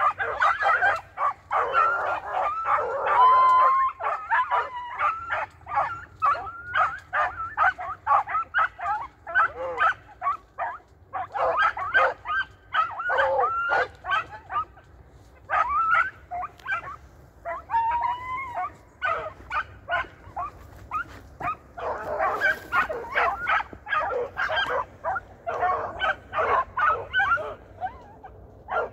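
Basset Fauve de Bretagne hounds baying and yelping, a rapid, overlapping run of short calls, while they work through brambles. They ease off briefly twice, then take up the cry again.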